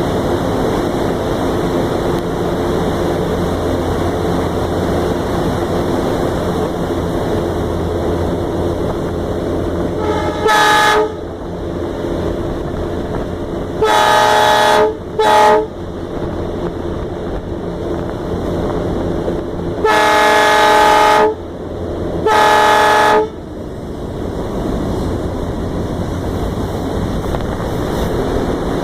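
Diesel locomotive running steadily, heard from aboard the engine, with its horn sounding five blasts in the second half: a short toot, a blast of about a second followed by a quick toot, then a blast of about a second and a half and one of about a second.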